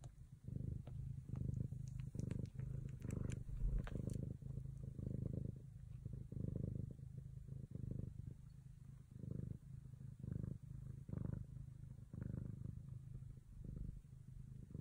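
Bengal mother cat purring steadily while her young kittens nurse, the low purr swelling and fading about twice a second with her breathing.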